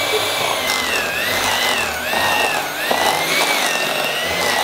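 Electric hand mixer running, its beaters working a bowl of powdered-sugar frosting; the motor's whine wavers up and down in pitch as the load changes.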